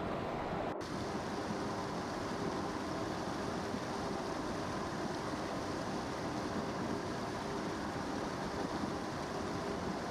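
Steady rushing of the River Tawe's running water, with a split-second dropout just under a second in.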